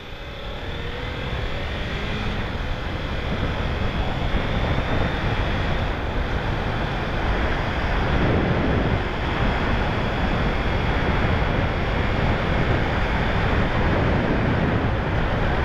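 Kawasaki Ninja 300 parallel-twin pulling away from a stop, its engine note rising as it accelerates, while wind rush over the rider's microphone builds and takes over as speed picks up.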